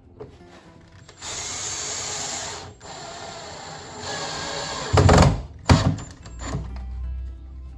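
Power drill running in two bursts of a second or two each, followed by a few heavy knocks.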